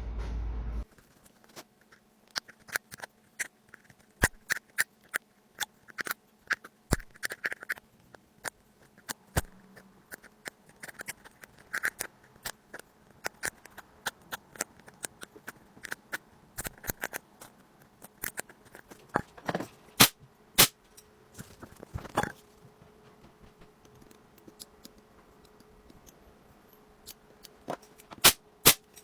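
A small metal pick scraping and clicking inside a phone's charging port as packed lint and dirt are dug out: irregular sharp clicks and short scratches, several a second, with the loudest clicks about 20 seconds in and near the end.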